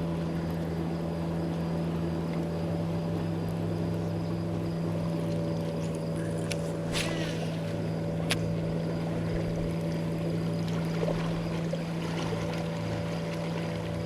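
Boat motor running at a steady pitch, with a few short clicks about halfway through.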